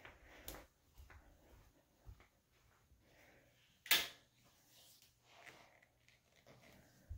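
Soft footsteps on carpet, about two a second, then one sharp click of a wall light switch being flipped about four seconds in.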